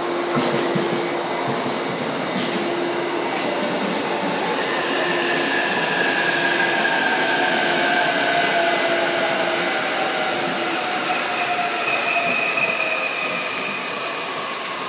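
Electric train running along the platform, a steady rolling rumble with a faint hum; from about five seconds in, several high whines slowly fall in pitch.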